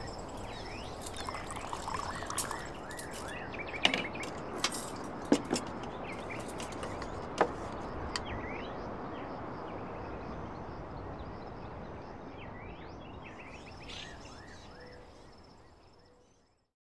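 Outdoor nature ambience: small birds chirping over a steady background hiss, with a steady high insect drone. A handful of sharp clinks sound a few seconds in. Everything fades out near the end.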